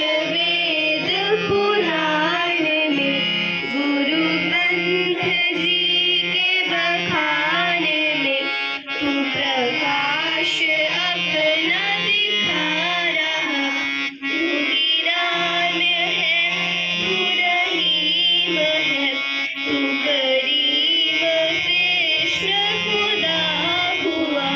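A devotional song sung by voices into microphones, accompanied by a harmonium holding a steady low drone under its chords, with two very short breaks in the sound.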